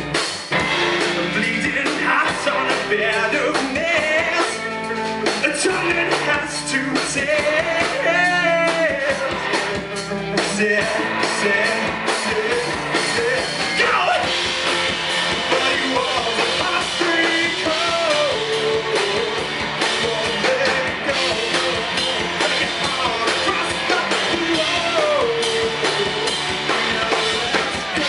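Live rock band playing: electric guitars and a drum kit, with a man singing lead.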